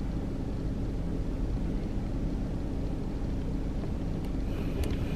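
Steady low rumble of a car heard from inside its cabin, with a couple of faint clicks near the end.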